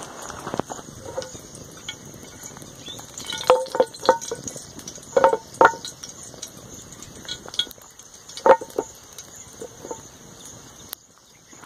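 A frying pan on a stone-ringed wood fire clanking as it is shifted by its handle: sharp metallic knocks with a short ring, in small groups, the loudest about eight and a half seconds in, over a faint crackle of burning sticks.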